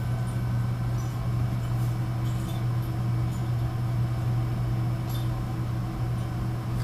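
A steady low hum at constant pitch, with a few faint ticks.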